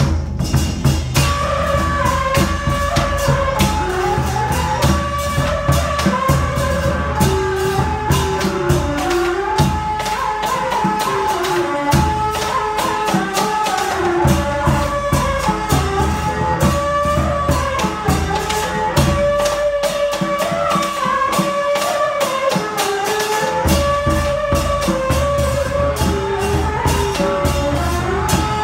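Traditional Vietnamese ceremonial music: a melody moving up and down over rapid percussion and a low drum.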